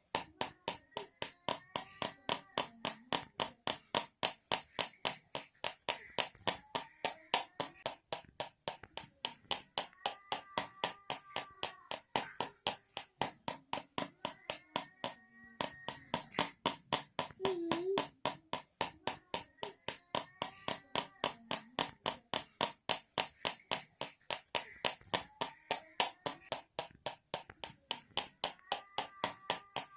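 Home-made rattle of two tins shaken in a steady rhythm, sharp metallic clicks about four times a second, over a soft repeating melody.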